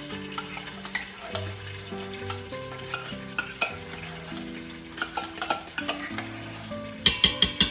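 Food sizzling in a pan while a utensil stirs and clicks against it, with a quick run of louder clattering strikes near the end. Soft background music with held notes plays underneath.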